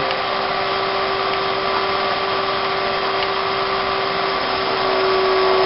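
Electric motor spinning a magnet rotor inside a ring of copper strap, a steady motor hum with a constant tone, slowing as the copper is pushed closer to the magnets: the eddy-current drag loads the motor and raises its amp draw.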